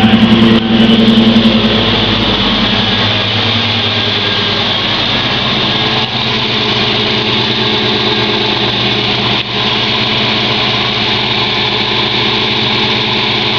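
1994 Ford Mustang GT's 302 (5.0 L) V8 idling just after a start, louder for about the first two seconds and then settling to a steady idle. A light tick that the owner takes for a lifter tick is hard to hear over the exhaust.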